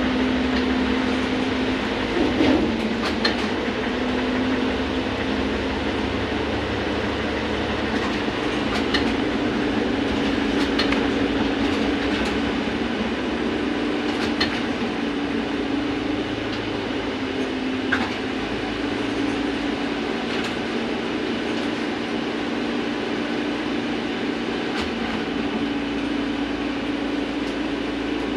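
Inside a VMZ-100 trolleybus under way: a steady electric hum that shifts slightly in pitch as the speed changes, over road rumble, with occasional short rattles and clicks from the body.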